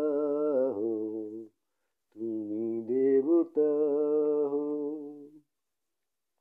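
A man singing long held notes with a wavering pitch, in two phrases with a short breath between; the voice stops about five and a half seconds in.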